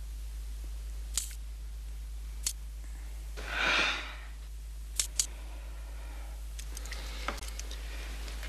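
Safe's combination dial being turned, giving sharp single clicks a second or more apart, a quick pair about five seconds in and fainter ticks later, over a low steady hum. A short breathy rush comes just after three seconds.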